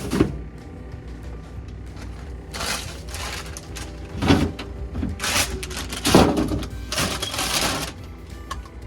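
Scrubbing and wiping inside a refrigerator: about six irregular rough bursts, each half a second to a second long, over faint background music.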